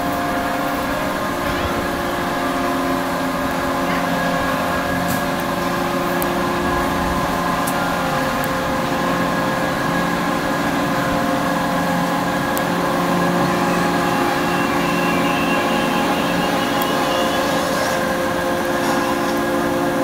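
Enterprise amusement ride running, its drive machinery giving a steady mechanical hum made of several held tones.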